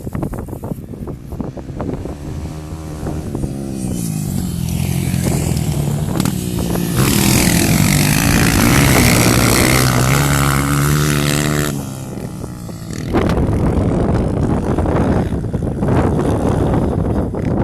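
Four-stroke single-cylinder trail motorcycle engine revving, its note rising and falling several times as it accelerates and shifts. Near the end it gives way to heavy wind noise on the microphone.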